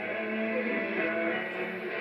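Music playing from a radio broadcast being monitored for alerts, with little treble.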